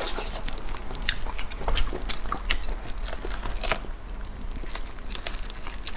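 Wet clicks and crackles as an opened durian's spiky husk segments are pried apart and the soft, sticky pods are pulled out by plastic-gloved hands, with mouth smacks from finger-licking.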